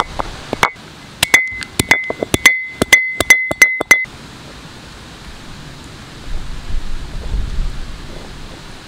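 Stone roller of a granite grinding stone (ammi) knocking on the stone slab while crushing turmeric roots: a quick, uneven run of sharp, ringing clinks, several a second, stopping about four seconds in.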